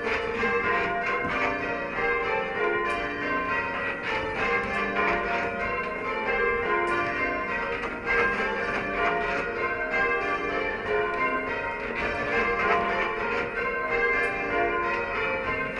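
A 14 cwt ring of church tower bells being rung full circle: a steady, unbroken stream of bell strikes, each ringing on under the next.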